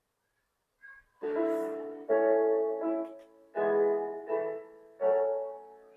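A song with held chords, a new chord starting about every second after a second of silence, playing from the built-in speakers of a Mi 40-inch LED TV (L40M5-5AIN): the TV's sound output is working again after the no-sound repair.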